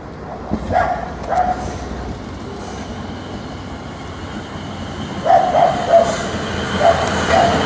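A dog barking in short barks, twice about a second in and then five or six times from about five seconds on, over the noise of a train growing louder.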